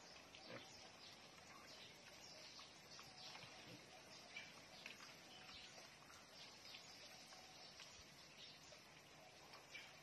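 Faint sounds of native pigs grunting now and then over a steady low hiss.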